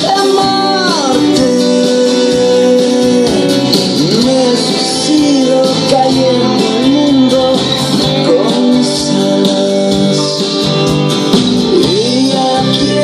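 Guitar music with notes that bend and slide in pitch, played back loudly through speakers driven by a Denon PMA-S1 integrated amplifier, showing the amplifier working.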